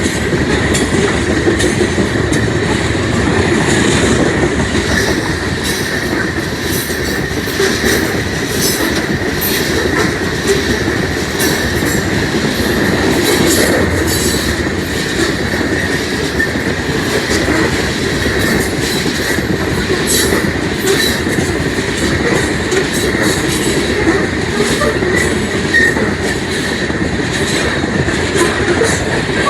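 Loaded coal train rolling past, with a continuous rumble of wheels on rail, scattered clicks and a thin steady squeal from the wheels.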